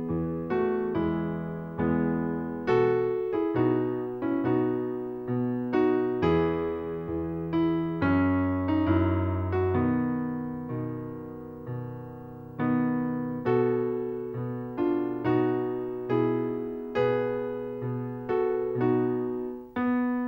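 Background piano music: unhurried single notes and chords, each struck and left to fade, a new one about every half second to second.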